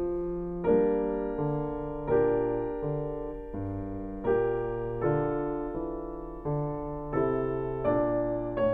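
Background piano music: chords over low bass notes, each struck and fading, a new one about every three-quarters of a second.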